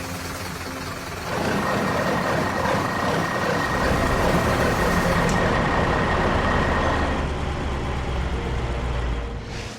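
Heavy truck engine running steadily, getting louder about a second in and easing off near the end.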